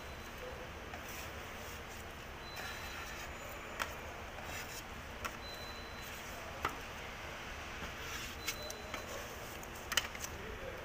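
Steady workshop background noise, with a faint short high beep repeating about every three seconds and a few sharp clicks here and there.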